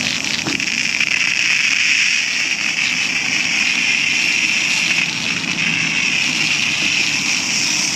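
Self-serve car wash pressure wand spraying coloured foam soap onto a truck's body panels: a steady, loud hiss of the spray.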